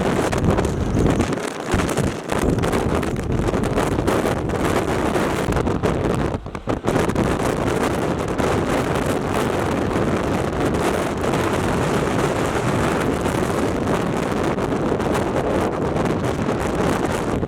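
Wind buffeting the microphone: a loud, steady rushing noise with a brief lull about six and a half seconds in.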